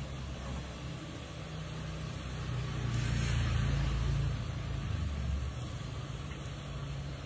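A low, steady, engine-like rumble that grows louder for about two seconds in the middle, then settles back.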